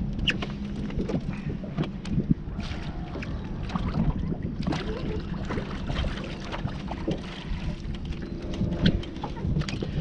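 Wind buffeting the microphone and water lapping against the hull of a small boat, with scattered short clicks and knocks.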